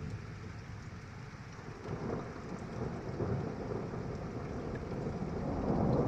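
Distant thunder rumbling over steady rain. The rumble swells about two seconds in and keeps building toward the end, from a storm that has moved away.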